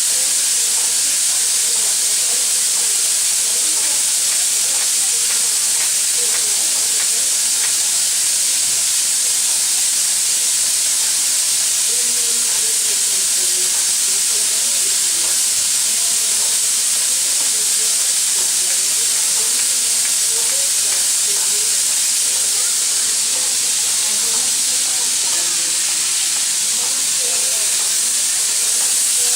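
L-class steam locomotive L-4600 blowing off steam with a loud, steady hiss that holds even throughout.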